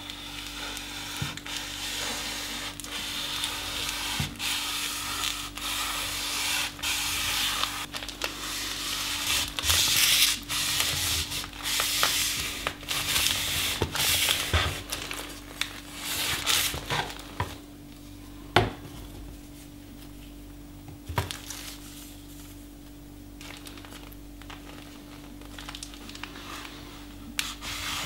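Almazan kitchen cleaver chopping through a block of paper onto a wooden cutting board: rapid repeated chops with the rasp of cut paper between them, thinning out after about two thirds of the way, with one loudest knock a little past halfway. A steady low hum runs underneath.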